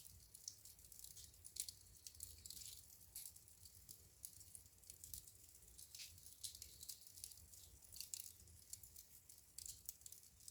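Wood fire burning in a fireplace, crackling: faint, irregular pops and snaps, several a second, over a low rumble.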